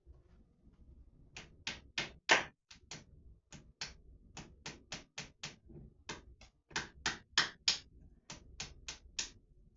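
Hammer tapping into a wall: about two dozen sharp strikes in quick runs of two to four a second, beginning about a second and a half in.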